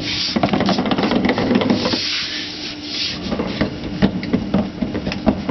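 Rubbing, creaking and small irregular knocks from someone shifting about on an inflated ball chair in its wheeled frame.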